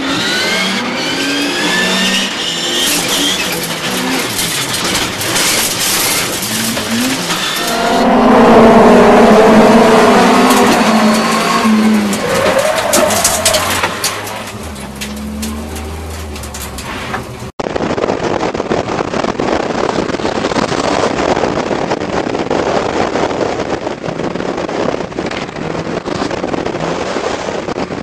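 Racing car engines heard from inside the car at full throttle, revving and rising in pitch through repeated gear changes, loudest about a third of the way in. After an abrupt cut about two-thirds through, a steady rushing noise takes over.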